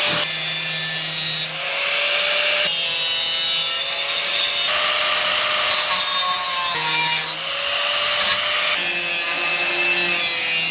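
Angle grinder with a thin cutoff wheel cutting the edge of a sheet-steel rail: a steady motor whine under a harsh grinding hiss that shifts as the wheel bites, easing off briefly twice.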